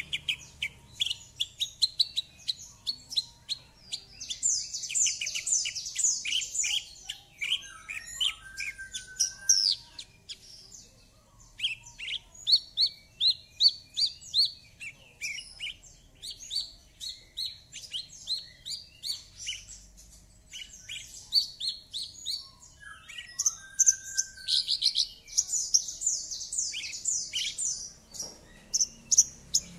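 Javan bush lark (branjangan, Mirafra javanica) in full, continuous song: a fast run of sharp, high chirps and trills with a few short lower whistles mixed in, easing off briefly twice.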